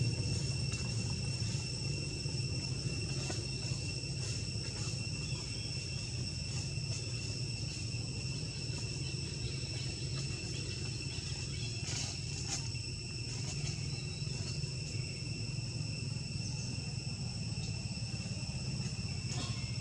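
Steady, unbroken high-pitched insect drone, with a low rumble underneath. A couple of faint clicks come about twelve seconds in.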